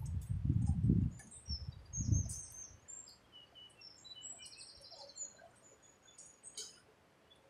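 Small birds chirping, with short high notes, quick glides and a rapid trill. For the first two seconds or so, low uneven bumps and rumble sound louder than the birds.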